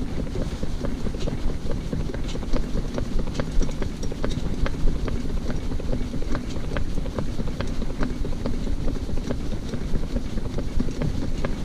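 Shetland pony's hooves clip-clopping on a tarmac road in a quick, even rhythm, over a steady low rumble of the pony cart's wheels rolling on the road.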